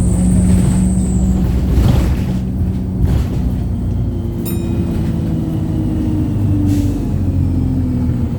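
Wrightbus StreetLite single-deck bus heard from inside while under way: the engine drones steadily over road noise, and its note sinks gently in the second half. A short rush of noise comes about two seconds in, and a brief high ping about halfway through.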